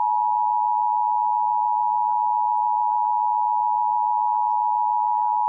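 Emergency Alert System attention signal: the steady two-tone alarm (853 and 960 Hz together) sounding without a break, the tone that opens an EAS alert, here a Required Monthly Test.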